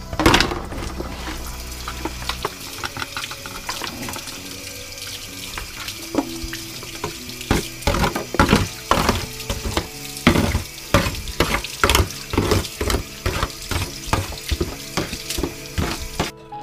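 A metal spoon scraping and knocking against a disposable aluminium foil pan, the foil crinkling, as wet chunks of marinated carp and herbs are scraped out into a second foil pan. From about halfway through the strokes come about twice a second.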